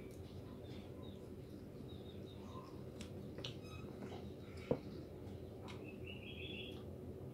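Small birds chirping now and then over a steady low hum, with soft clicks from fingers picking at rice and fish, and one sharp tap a little past halfway.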